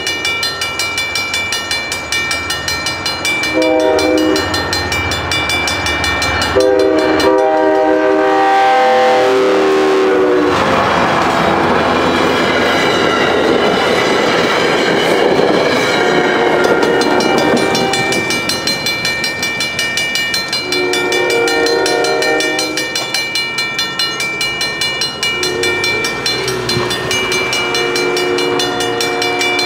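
BL20GH diesel locomotive's horn sounding a series of loud blasts, the longest about three seconds, as the train passes. A dense rush of the train going by fills the middle, with a steady high ringing underneath throughout.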